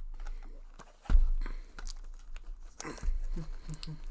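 Trading cards and foil booster-pack wrappers being handled and rustled, with a dull thump about a second in.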